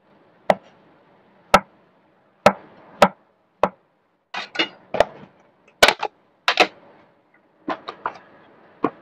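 Chinese cleaver chopping through a block of tempeh onto a thick round wooden chopping block: sharp knocks about a second apart at first, then coming in quick pairs and clusters.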